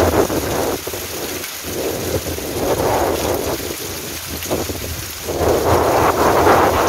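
Heavy rain and wind of a tropical storm, a loud rushing noise with a low rumble underneath that swells in surges at the start and again near the end.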